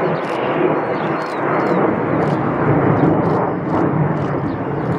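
Jet noise from the twin CFM56-7B turbofans of a Boeing P-8A Poseidon passing overhead as it climbs away from a missed approach: a loud, steady rumble that swells slightly midway.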